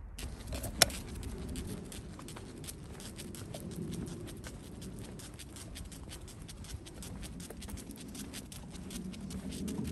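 Quick, irregular patter of a small dog's paws and claws on pavement as a Pekingese walks on a leash, mixed with the walker's footsteps. A single sharp click about a second in is the loudest sound.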